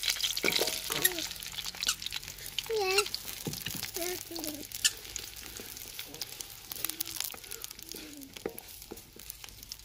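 Lumps of jaggery tipped into hot desi ghee in an aluminium kadai and stirred with a wooden spatula: a sizzle with clicks and scrapes of spatula on metal, dying down over several seconds.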